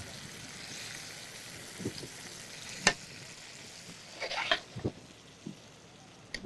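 Sujuk sausage frying in a pan with a soft, steady sizzle that fades down about halfway through. Over it come a few sharp clicks and a ringing clink of metal tongs and a spoon against the pan and bowls.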